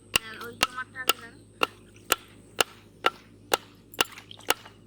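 Sharp, evenly spaced chopping blows, about two a second, as of a blade cutting into wood.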